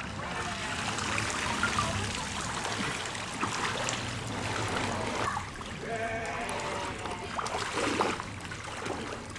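Wading footsteps sloshing and splashing through shin-deep floodwater, uneven and continuous.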